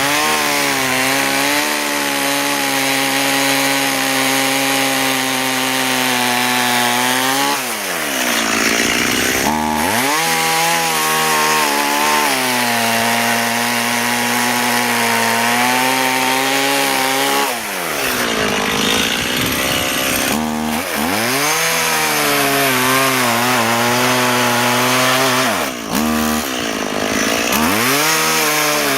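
Stihl 018 (MS 180) two-stroke chainsaw cutting into a big hardwood trunk at high revs. The revs sag and climb back again several times over the cut.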